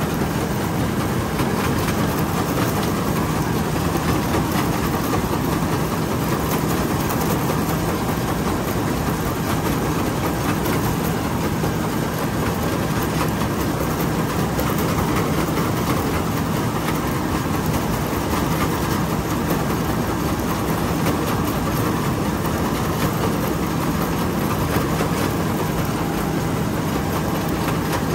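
Somboon Pattana rice combine harvester running steadily, its engine and machinery giving a constant low hum under an even mechanical noise that never changes pace.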